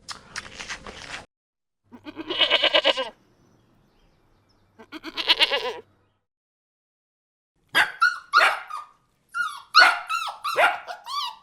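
A short rough noise, then two long wavering bleats, then a dog barking in quick succession from about eight seconds in.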